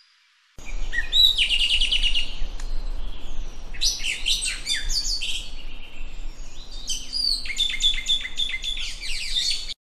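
Island Thrush (Taiwan subspecies niveiceps) singing: three phrases of quick, high chirping notes with short pauses between them, over a faint low hum.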